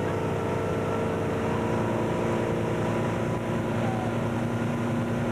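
Motorboat engine running steadily at towing speed, with a constant hiss of wind and water spray.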